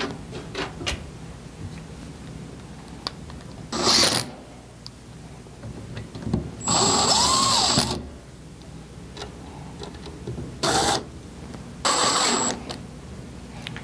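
Cordless drill driving screws into a metal light-fixture housing in four short runs: a brief one about four seconds in, the longest, just over a second, near seven seconds, then two more near eleven and twelve seconds. Light clicks and knocks from the fixture cover being handled come first.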